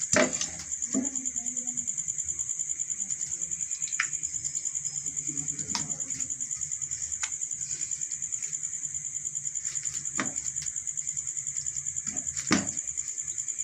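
Steady high-pitched insect chirping, pulsing about seven times a second, with a few short knocks and clicks as marinated chicken legs are set down in a nonstick frying pan; the sharpest knocks come just after the start and near the end.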